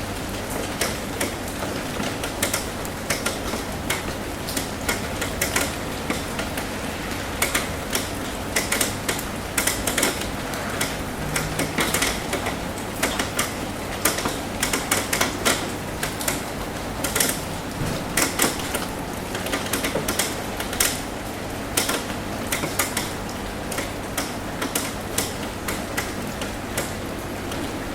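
Rain drumming on a metal roof: a steady hiss of rain with many irregular, sharp taps of single drops on the metal.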